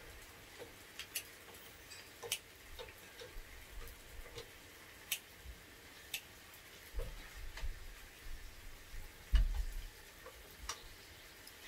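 Scattered sharp clicks of metal tongs and scissors clacking against each other and on an electric grill plate, with a few dull low thumps, the loudest about nine and a half seconds in.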